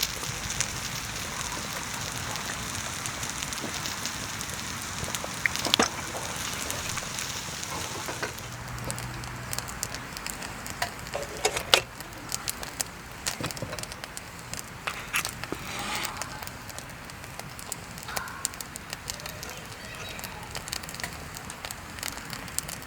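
Wood campfire crackling over a steady hiss, with sharp pops scattered through it; the loudest pop comes about twelve seconds in.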